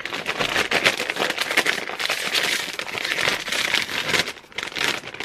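Plastic potato chip bag crinkling and crackling as it is handled and pulled open at the top, with a short lull about four seconds in.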